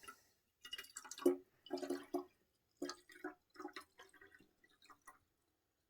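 Water being poured in short, uneven gushes and splashes between a plastic water bottle and an aluminium canteen, measuring the canteen's capacity. It trails off about five seconds in.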